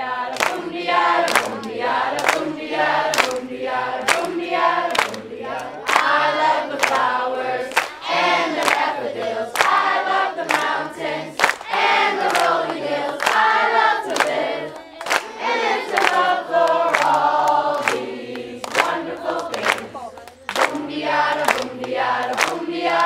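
A group of campers and counselors singing a camp song together, clapping along in a steady beat of about two claps a second.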